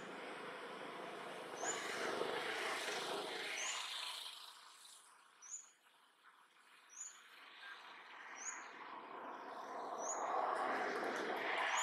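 A bird repeating a short, high chirp about every one and a half seconds, over a rushing noise that swells and fades twice.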